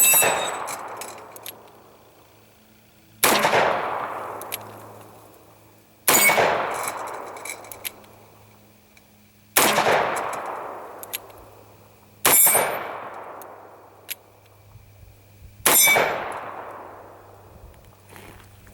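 Six shots from a stainless Ruger GP100 revolver in .327 Federal Magnum firing 100-grain soft-point loads, one about every three seconds. Each loud crack is followed by a long echoing decay.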